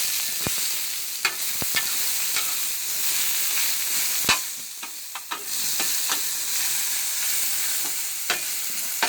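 Zucchini and onions sizzling on a hot Blackstone flat-top griddle, with a metal spatula clicking and scraping against the steel several times. The sizzle dips briefly about halfway through.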